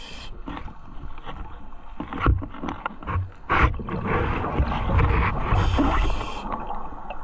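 Scuba diver breathing through a regulator underwater: a few seconds of exhaled bubbles streaming past, then a short hissing inhale near the end.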